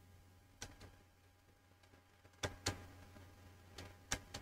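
A few faint, sharp computer mouse clicks: a single one, then two quick pairs about two seconds apart, as the pen tool's menu is opened. A low, steady electrical hum runs underneath.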